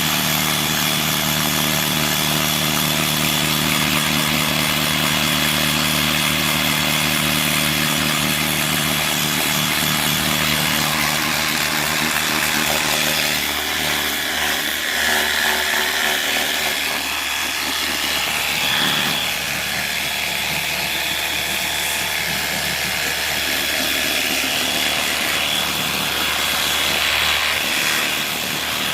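Pressure washer running steadily, its jet hissing as it blasts grime off a surface.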